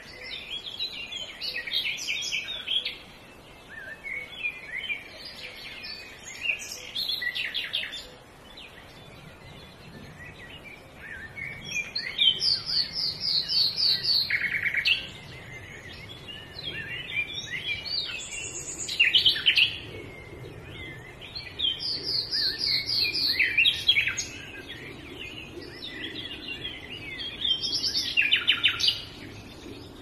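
Woodland birdsong: several birds singing in overlapping short phrases, with a fast run of repeated high notes about twelve seconds in and again about twenty-two seconds in.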